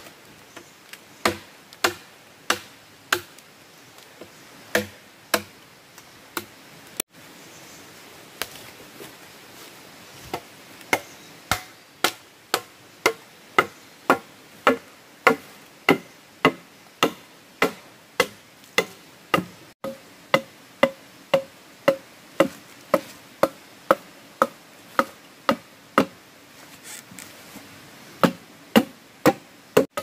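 Machete blade chopping into bamboo, a long series of sharp blows. The blows come spaced about a second apart at first, then settle into a steady run of about two a second, with a short pause near the end.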